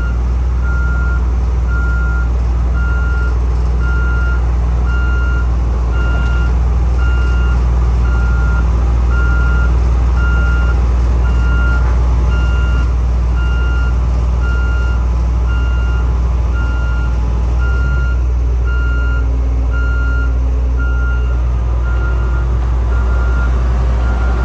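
Dynapac SD2500CS asphalt paver's diesel engine running with a steady low drone while its reversing alarm beeps at an even pace, about three beeps every two seconds.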